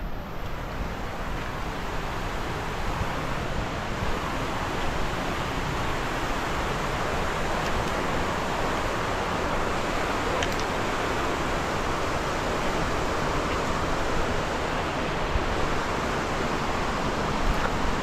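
Steady rushing of a river's rapids, an even wash of water noise that grows a little louder over the first few seconds.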